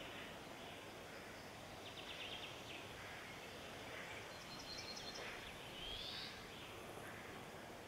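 Birds calling faintly over a steady outdoor hiss: a couple of short, rapid chirping trills, and a brief rising whistle about six seconds in.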